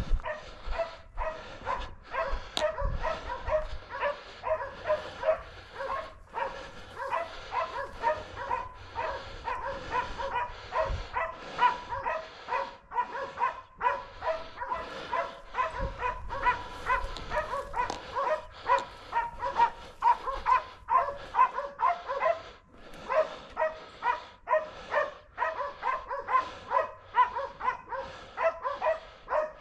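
A pack of hunting dogs baying on a wild boar's trail: rapid, overlapping barks at two different pitches, two to three a second, from at least two dogs.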